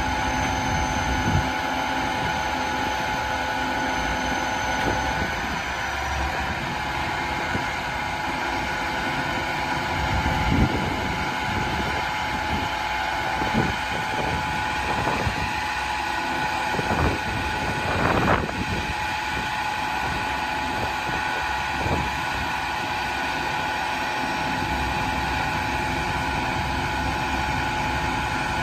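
Bucket truck's diesel engine running steadily to drive the raised Altec boom's hydraulics, with a steady whine over the engine drone. A handful of short knocks and clunks come through the middle.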